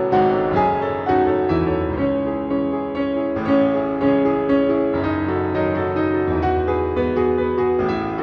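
Background music led by piano: a gentle melody of held notes over a low bass.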